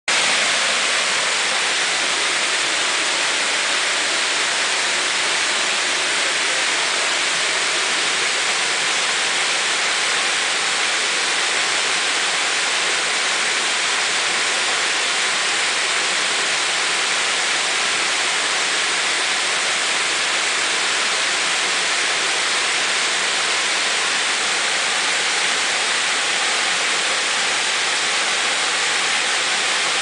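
Small waterfall: several thin streams of water falling down a rock cliff and splashing into a pool, a steady hiss that does not change.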